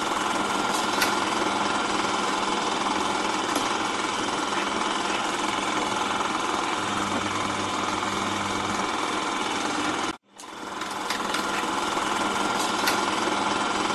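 Film projector running: a fast, steady mechanical clatter. It cuts out abruptly for a moment about ten seconds in and then starts up again.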